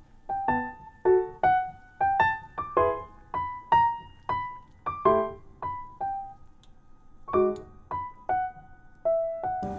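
Background music: a slow, gentle piano melody of single notes, roughly two a second, each ringing out and fading.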